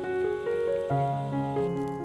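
Background piano music: a melody of single notes over held low notes, with a new bass note coming in about a second in.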